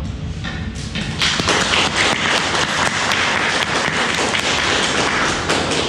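Audience applauding: light clapping at first that swells to full applause about a second in and holds steady.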